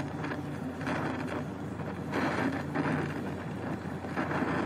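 Brazing torch flame hissing while the copper lines of a replacement refrigerator compressor are silver-soldered, surging louder and softer as the flame is worked around the joints, over a steady low hum.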